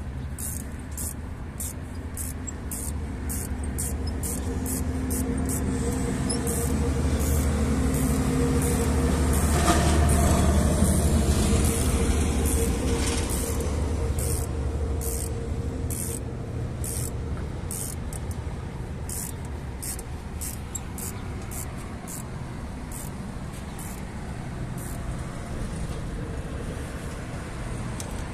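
Heavy diesel truck engine running steadily, a low hum that swells for a while about ten seconds in and then settles back. Many sharp, high-pitched ticks sound over it at uneven intervals.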